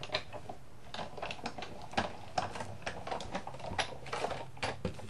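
Irregular light clicks and taps as a plastic embossing folder, die-cutting machine plates and cardstock are handled and set against one another.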